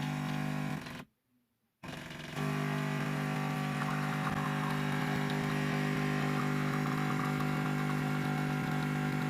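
A steady machine hum with a low buzzing tone, cutting out completely for under a second about a second in, then resuming and holding steady.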